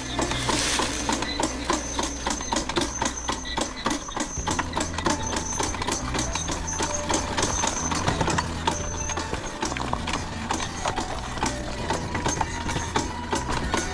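Background music with a low bass line that steps between notes, under a busy rapid clicking rhythm.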